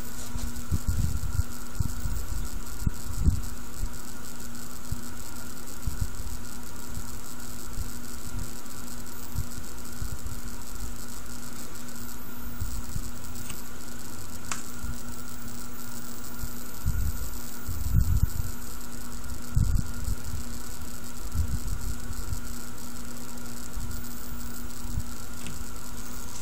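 Steady electrical hum with several thin constant tones over a faint hiss, broken by low bumps and rumbles from the hand-held camera being moved.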